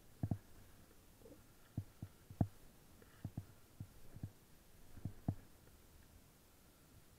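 A series of soft, irregular low thumps, about a dozen, unevenly spaced; the loudest comes about two and a half seconds in.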